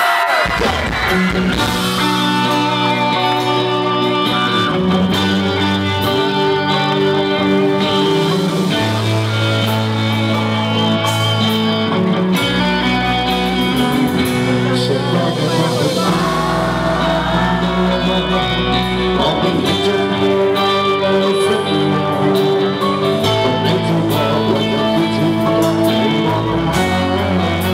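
Live band performing a song through a stage PA: electric guitar and drums over sustained bass notes that change every few seconds.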